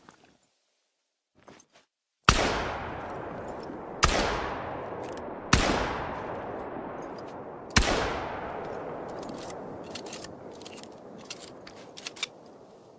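Strandberg 10SA Executive shotgun fired four times, spaced roughly one and a half to two seconds apart, each shot followed by a long echoing tail that dies away slowly. A few faint short clicks come just before the first shot and again near the end.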